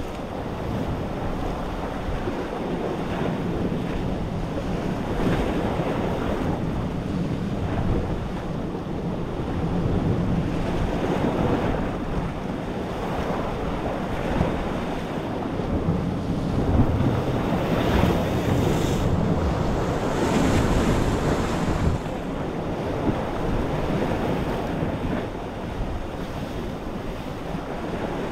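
Sea surf washing and breaking against a rocky shoreline, with wind buffeting the microphone. A louder, hissier surge of breaking water comes about two-thirds of the way through.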